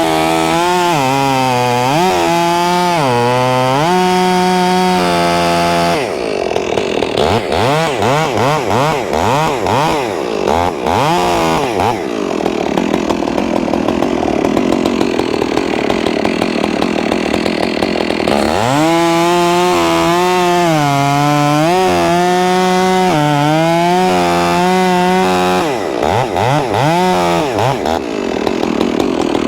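Two-stroke chainsaw cutting firewood, the engine revving up and down between cuts. Around the middle it holds a long steady cut through the wood.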